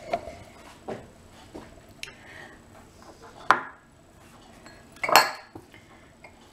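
Small glass prep bowls being handled and set down on a kitchen counter: a few light clinks and knocks, the sharpest about three and a half seconds in and another about five seconds in.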